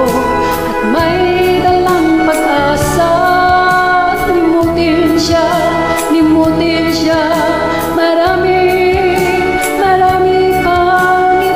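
Karaoke backing track of a Filipino pop ballad playing an instrumental passage between sung verses, with held, slowly moving melody lines over a steady accompaniment.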